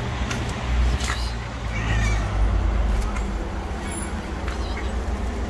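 A tabby cat meows briefly, most clearly about two seconds in, over a steady low rumble.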